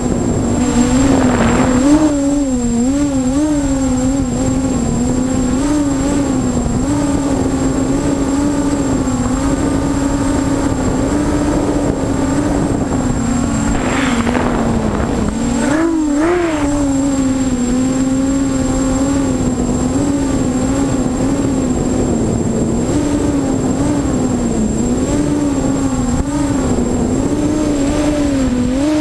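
A 300mm FPV racing quadcopter's brushless motors and propellers whining, heard from its onboard camera; the pitch wavers constantly with throttle changes. There are short, sharp rises in pitch about a second in and twice about halfway through, as the throttle is punched.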